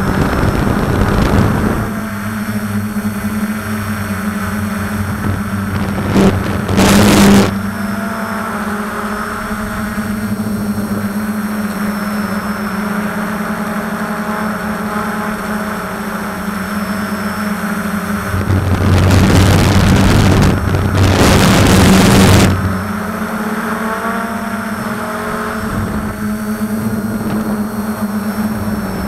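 DJI F-450 quadcopter's brushless motors and propellers buzzing steadily, heard from a camera on the frame, a constant hum with overtones. A loud rush of wind noise swells over it briefly about seven seconds in, and again for about four seconds near twenty seconds in.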